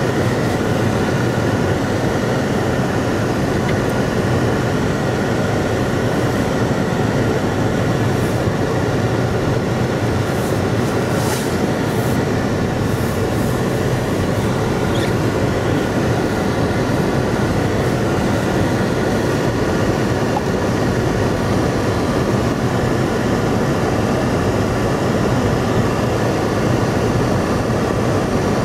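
Steady engine and tyre noise of a car driving on a snow-covered road, heard from inside the cabin, with a few faint high ticks around the middle.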